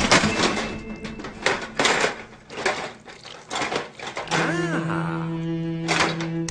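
A quick run of sharp clanks and knocks, then a held musical tone with a short rise-and-fall glide from about four seconds in.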